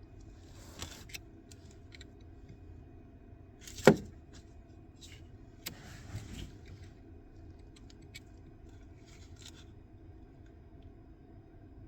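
Handling noises: scattered light clicks and rustling, with one sharp knock about four seconds in and a smaller click near six seconds, over a faint steady hum.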